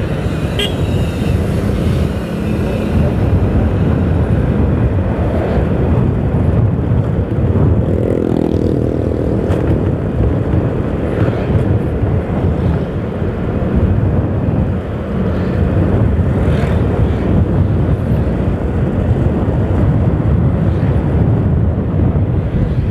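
Motorcycle ride heard from the rider's own bike: a steady engine drone mixed with wind and road noise. A brief engine note from another vehicle stands out about eight seconds in.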